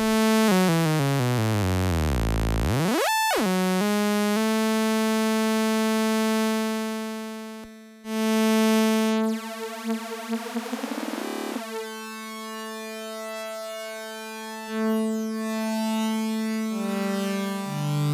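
Sawtooth oscillator of the Unfiltered Audio LION software synthesizer with its tune swept under pitch quantization. The pitch falls in stepped jumps, dips sharply and comes back up, then holds a bright buzzing note. A new note starts about 8 s in, there is a rising glide a few seconds later, and the pitch steps down again near the end.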